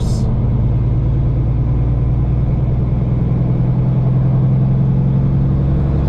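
Semi truck's diesel engine running steadily at highway speed, heard inside the cab along with road noise.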